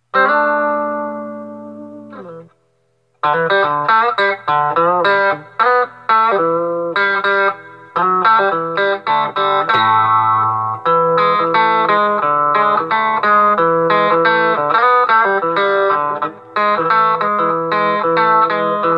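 Gibson Melody Maker electric guitar played through an Acoustic Control Corp 260 solid-state amp head set to the manual's 'Telecaster' tone, with the bass cut fully. A strummed chord rings and fades, then about three seconds in a run of picked notes and chords carries on. The tone is short on high end, which the player puts down to the guitar's pickup.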